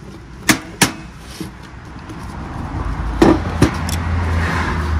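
Sharp clicks and knocks of parts and tools being handled on a workbench: two close together early on, two more a little past halfway. A low hum swells in the second half.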